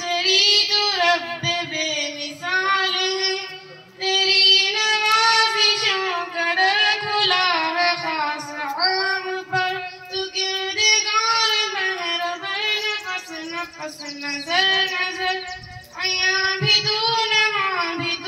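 A schoolgirl singing an Urdu hamd, a devotional song praising God, solo into a microphone. She sings long held phrases with wavering pitch, breaking briefly for breath about four seconds in and again near the end.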